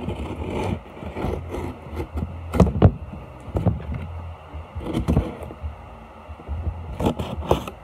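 Cardboard shipping box being handled and opened: irregular scraping and rustling of the cardboard, with a few sharp knocks.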